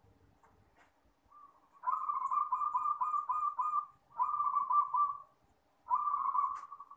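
Zebra dove cooing: three phrases of rapid, rippling coos, the first starting about two seconds in and lasting about two seconds, the next two shorter.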